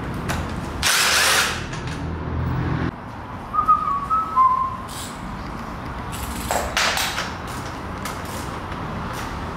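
Cordless drill running steadily for about three seconds as it backs out the bolts of a motorcycle's steel shipping crate, with a brief louder rush about a second in. After it stops come a few short high whistled notes and scattered metal clicks and knocks, with a louder rattle near the end.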